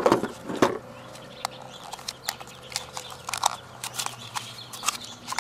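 Toy-gun packaging being handled: irregular clicks, rattles and rustles of plastic and cardboard, with two louder knocks at the start.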